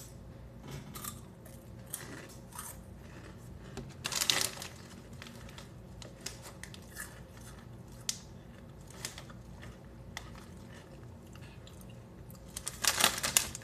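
Crunchy Cheetos Xtra Flamin' Hot being bitten and chewed close to the microphone: irregular dry crunches, louder about four seconds in and again near the end.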